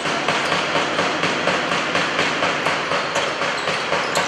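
Basketball arena ambience: crowd noise, cut by a steady run of sharp knocks about two or three a second.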